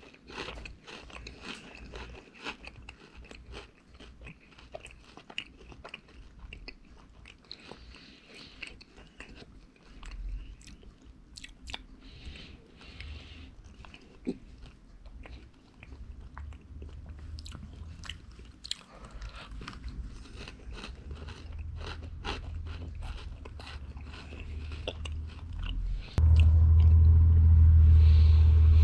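Dry Magic Spoon cinnamon roll cereal being crunched and chewed close to the microphone, a long run of small crisp crunches. Near the end a loud steady low rumble starts suddenly and stays.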